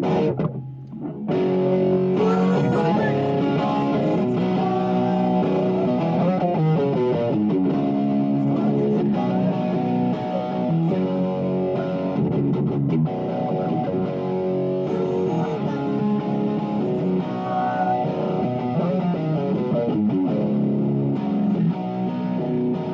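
Guitar playing a chord progression, starting about a second in and running on steadily as a song's intro.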